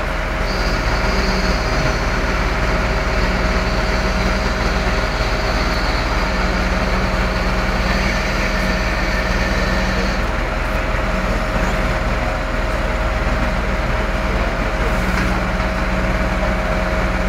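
Heavy vehicle engine running steadily at a constant speed: a continuous low rumble with a steady whine over it.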